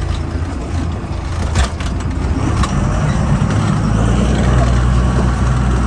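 A few knocks and rubbing from handling on the boat, then a boat's engine running steadily from about four seconds in.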